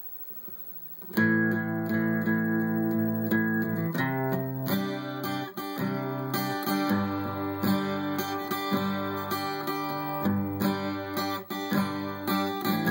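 Acoustic guitar strumming chords in the instrumental opening of a country song, coming in suddenly about a second in after near silence.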